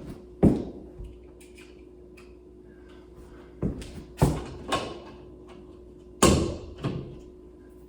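Sharp knocks against a sheetrock wall while an outlet-box opening is cut and fitted: about six strikes in uneven groups, two near the start and four in the second half. A faint steady hum runs underneath.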